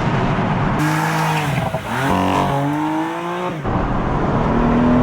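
BMW M4's twin-turbo straight-six, on a Bootmod3 Stage 1 map, accelerating hard: the pitch climbs, drops at a gear change, then climbs again. Near the end it switches abruptly to a steadier engine drone.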